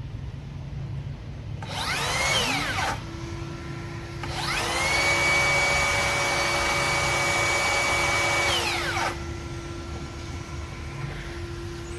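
Makita DHS783 cordless circular saw triggered twice, a short burst and then about five seconds, its motor whining up to speed and winding down each time. Under it a cordless vacuum cleaner runs with a steady lower hum from just after the first start, and keeps going after the saw stops.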